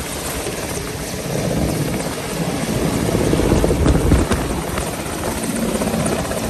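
Mi-17-type twin-turbine military transport helicopter hovering low, with loud, continuous rotor and turbine noise that swells to its loudest about four seconds in.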